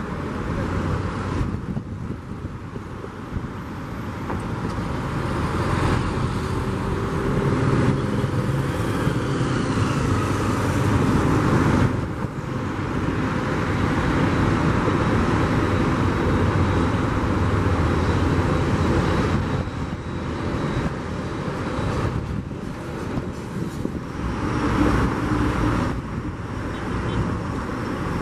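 Road traffic mixed with the running jet engines of a taxiing Boeing 777-200F (GE90s): a steady rumble that swells and eases a few times.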